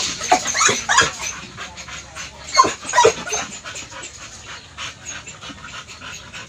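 Caged dogs whining and yipping in short high-pitched calls, a cluster in the first second and another about two and a half seconds in.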